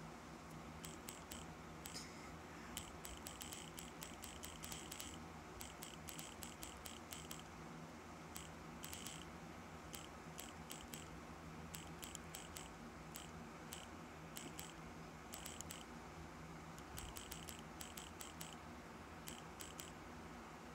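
Faint irregular clicks of typing on a phone's touchscreen keyboard, coming in quick runs with short pauses between, over a steady low hum.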